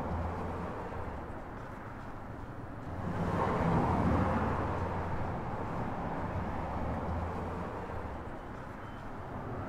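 Street traffic ambience: a steady low rumble of vehicles that swells about three seconds in and eases off again.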